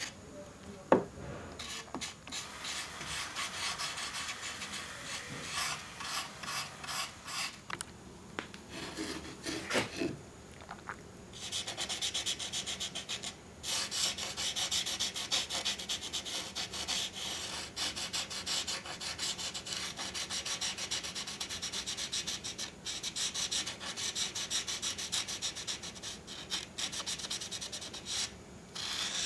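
Felt-tip permanent marker scrubbed rapidly back and forth over bare wood, blacking in the inside of a wooden radio cabinet. There is one sharp knock about a second in, and the scratching gets brighter and denser from about twelve seconds in.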